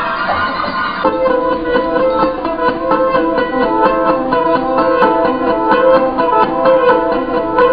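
Plucked-string music: a fast, repeating riff over a steady held note, starting about a second in after a denser sustained sound.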